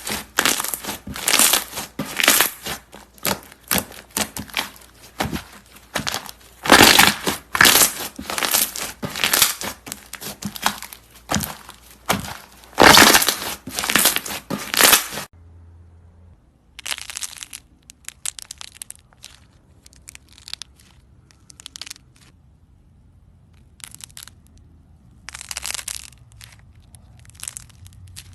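Crunchy slime being squeezed and pressed by hand, giving dense crackling and popping. About halfway through it changes to quieter, sparser crackles.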